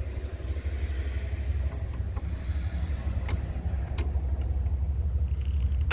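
Steady low rumble under a few sharp metallic clicks of hand tools working a hose clamp on a radiator line, the sharpest click near the end.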